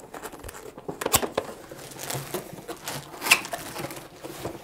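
Plastic wrapping and cardboard packaging rustling as they are handled, with a few sharp clicks and taps, the loudest about three seconds in.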